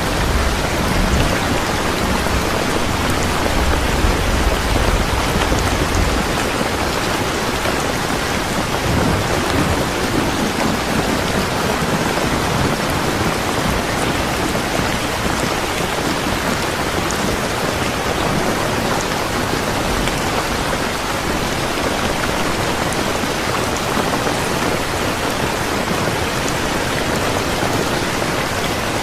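Steady heavy rainfall. A low rumble under the rain for the first several seconds eases off.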